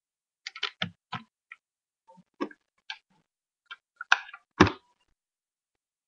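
Small makeup items being handled and put down: a run of about a dozen short, irregular clicks and taps of plastic and metal, with two louder knocks about four seconds in.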